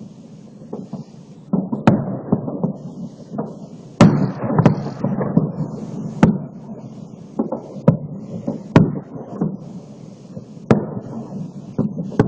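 Fireworks salute shells bursting at irregular intervals, each sharp bang followed by a low rolling echo. The loudest burst comes about four seconds in.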